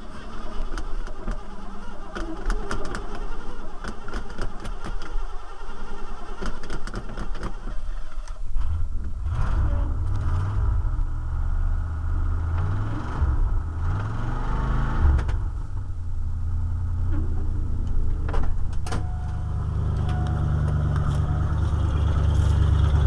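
1986 Ford F250's 351 Windsor V8 with a Holley four-barrel carburettor, started from a push button that stands in for a bypassed ignition control module. It cranks, catches about eight seconds in, revs up and down a few times, then settles into a steady idle.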